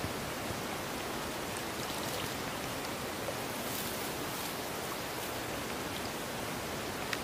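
Steady, even outdoor hiss with no clear source, broken by a couple of faint clicks.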